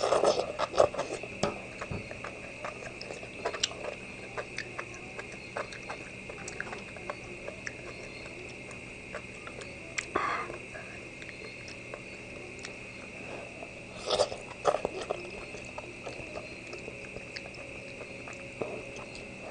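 A person eating: slurping broth and enoki mushrooms from a spoon and chewing, with small clicks of a metal spoon and chopsticks against a stainless steel pot. The loudest slurps come right at the start, again about ten seconds in and about fourteen seconds in.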